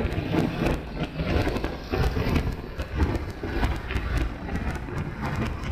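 Road and wind noise from a car driving through city traffic, heard from a camera mounted on its roof: an uneven low rumble with wind buffeting the microphone.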